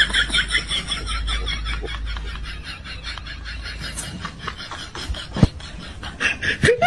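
Two young women laughing at a joke, a giggle in quick repeated pulses that fades through the middle and picks up again near the end.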